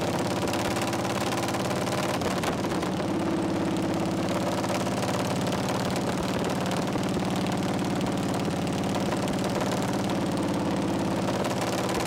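Harley-Davidson Shovelhead V-twin engine of a chopper running steadily while the bike is ridden, its note holding even throughout with no revving up or down.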